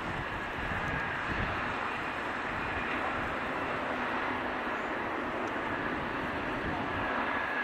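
Jet airliner's engines heard as a steady rush of noise, with no sharp changes.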